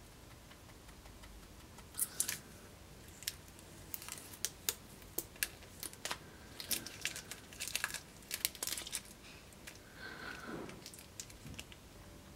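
Black plastic tape, used as an etching resist, being peeled and crumpled off a metal cutlass handle. After a quiet start it gives a run of sharp crackles and crinkles from about two seconds in, ending with a softer rustle.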